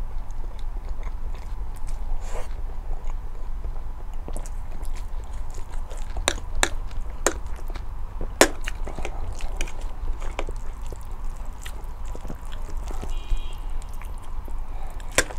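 A person eating spicy ramen and eggs close to the microphone: chewing, with scattered sharp mouth clicks and smacks over a steady low hum.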